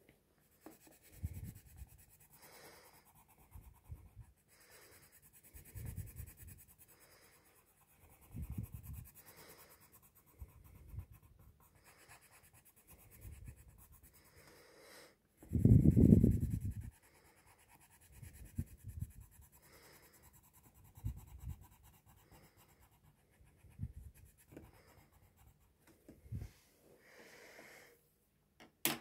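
Coloured pencil shading on paper with firm pressure and a sharp point: a series of short scratching strokes every second or two, one louder and longer about halfway through.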